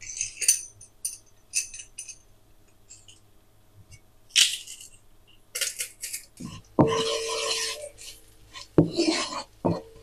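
A metal garlic press clicking and rasping as garlic is squeezed through it over a wok. This comes as a series of short clicks and scrapes with a longer rasping stretch about seven seconds in, followed near the end by a wooden spoon scraping the pan.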